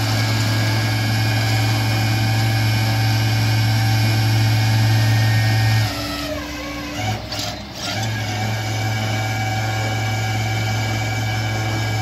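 Flatbed tow truck's engine and winch running steadily as the tilted bed pulls up a car. About six seconds in the drone drops out and a pitch slides down, then the steady running comes back about two seconds later.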